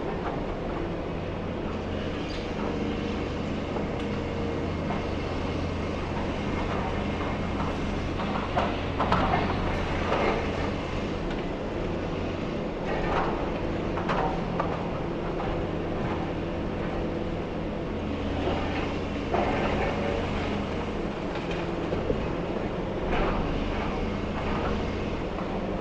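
Demolition excavator's engine running steadily, with scattered crunches and clanks as its attachment breaks and pulls apart concrete and metal, the loudest cluster a little over a third of the way in.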